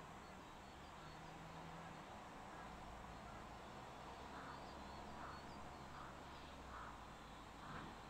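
Crows cawing faintly, a run of about five caws roughly a second apart in the second half, while small birds chirp high and thin over a quiet outdoor background hiss.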